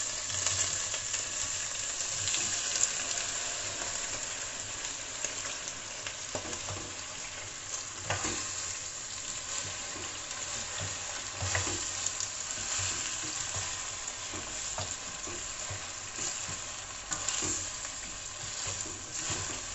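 Broccoli and potatoes sizzling in hot oil in a stainless steel pot as they are stirred with a wooden spoon, which knocks against the pot now and then.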